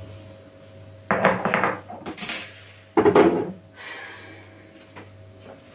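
Dishes and metal cutlery clattering as they are handled and set down on a countertop, in three short bursts, the loudest about three seconds in. A steady low hum runs underneath.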